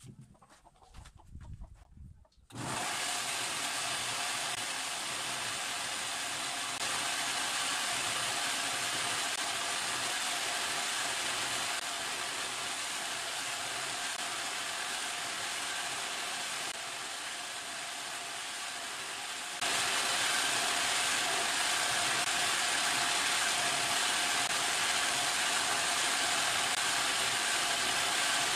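Homemade electric coconut grater, a bench grinder motor spinning a serrated grating head, switched on about two and a half seconds in and then running steadily with a faint whine. A coconut half is pressed against the spinning head, scraping out the meat; the sound steps louder about twenty seconds in.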